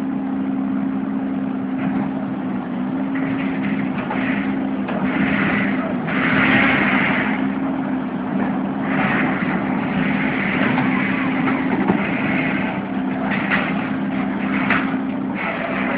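Heavy machinery at a demolition site running with a steady engine hum. Irregular louder stretches of grinding, scraping noise come and go over it.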